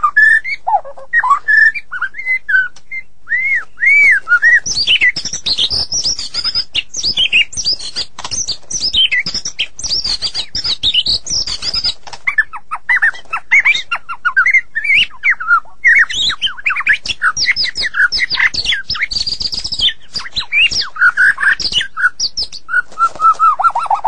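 White-rumped shama singing a long, varied song of quick whistled slides, rapid chattering phrases and harsher notes, with only short gaps, ending in a fast run of one repeated lower note.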